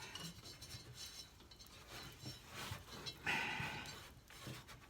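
Faint scraping and small metal clicks as a stuck bolt is worked at on a Toro 265-6 lawn tractor, with one louder, longer scrape about three seconds in.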